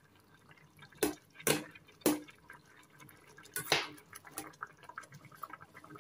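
A metal spoon stirring pork sinigang broth in a metal pot, clinking sharply against the pot four times among smaller taps, with the liquid sloshing.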